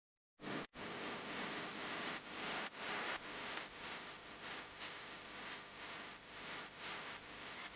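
Steady rush of falling water, starting abruptly about half a second in, with a brief gap just after and gentle swells in level.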